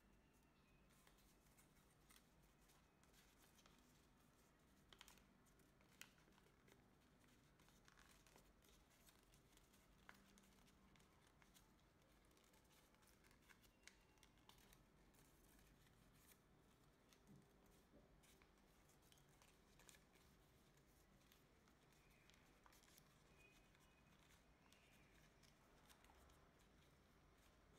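Very faint rustling and crinkling of origami paper being creased and shaped by hand, with scattered soft clicks, over near-silent room tone.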